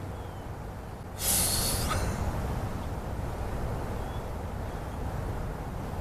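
Steady low outdoor rumble, like wind on the microphone, with a short loud hiss about a second in that lasts under a second.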